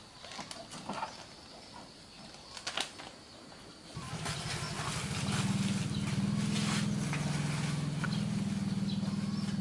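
Light handling clicks and rustles, then about four seconds in a small engine starts running steadily at idle, growing louder about a second later.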